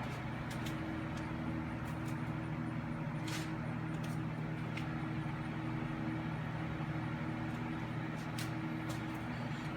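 A steady low mechanical hum, with a few light clicks and knocks scattered through it.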